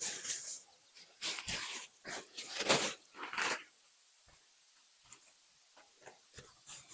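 Black plastic bags and nylon fabric rustling in several loud bursts as the gear is pulled out and shaken, then only a few light rustles for the last few seconds.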